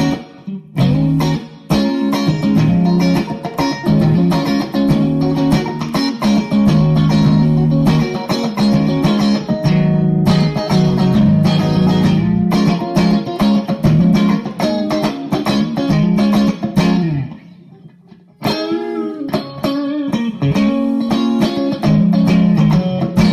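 Fender Stratocaster electric guitar played through a Bad Cat Bobcat 5R amp, with the amp's gain turned all the way up and the master volume backed off a little. The playing stops for about a second roughly three-quarters of the way through, then picks up again.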